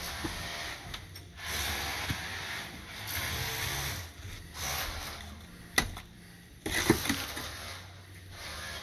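Work boots scuffing and crunching over sandy, gritty paving while wet mortar is carried and handled, with two sharp knocks about a second apart near the middle.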